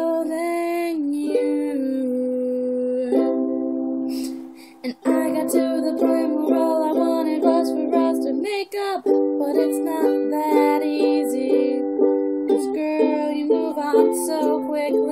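Ukulele strummed in chords. Long ringing chords come first, with a brief drop about five seconds in, then a regular strumming rhythm.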